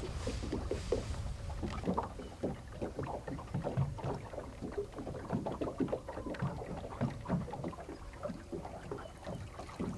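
Small waves lapping and slapping irregularly against the hull of a stationary fishing boat, over a low steady rumble.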